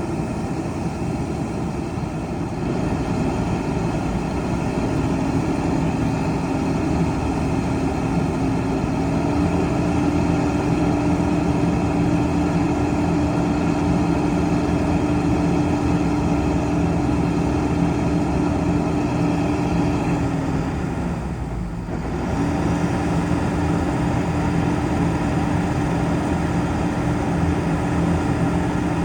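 Rice combine harvester running steadily while it unloads grain, a steady engine note with a held tone over it. The tone rises slightly in pitch twice in the first ten seconds. About two-thirds of the way through the sound dips out for about a second, then comes back.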